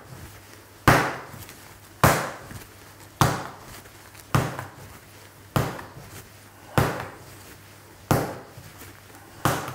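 Soft, sticky bread dough slapped down onto a wooden workbench eight times, about once every 1.2 seconds, as it is lifted, stretched and folded over by hand in slap-and-fold mixing. Each slap is a sharp smack that dies away quickly. The dough is near the end of mixing.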